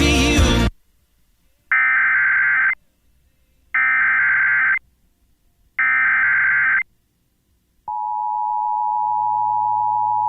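NOAA Weather Radio Emergency Alert System alert: three bursts of warbling digital data tones (the SAME header), each about a second long and a second apart, then near the end a steady single-pitch warning alarm tone begins. The header and alarm signal an incoming winter storm warning.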